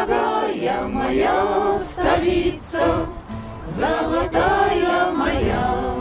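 A group of voices singing a Soviet wartime song together in chorus, accompanied by an acoustic guitar.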